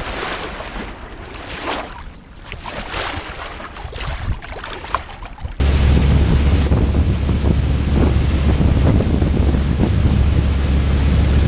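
Water rushing and splashing along a sailboat's hull under way, with wind on the microphone. About halfway through it cuts to a louder, steady rush of spray and wind buffeting the microphone as a small runabout planes at speed.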